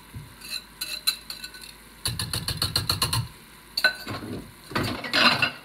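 Wire whisk clicking and knocking against a plastic mixing bowl as beaten eggs are worked out of it: scattered taps, then a quick rattling run of about ten strikes a second for about a second, and a louder clatter near the end.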